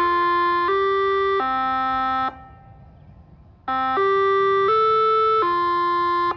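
Electronic attention chime from the outdoor warning system's loudspeakers, played ahead of the recorded test announcement. It is a short tune of steady notes, each held under a second. One run falls in pitch and stops a little over two seconds in; after a pause a second run rises and then falls.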